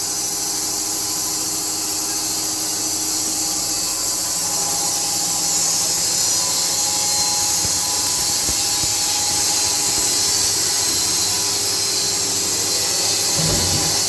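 Automatic band sawmill cutting lengthwise through a hardwood log on its first cut: a steady hiss from the blade in the wood, with a low machinery hum beneath.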